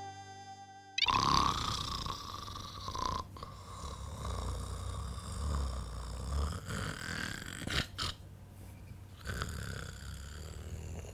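A man snoring in his sleep. It starts about a second in, as music cuts off.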